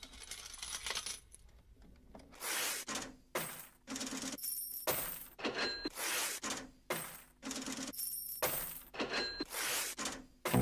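Coins jingling and spilling as a sound effect, a quick run of about a dozen short metallic rattles, some with a brief ring.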